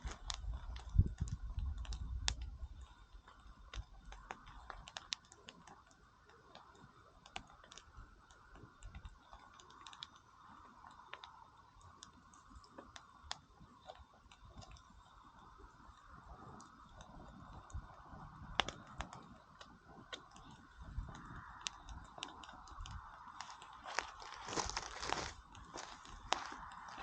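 Wood campfire crackling, with irregular sharp pops and snaps and a cluster of louder pops near the end.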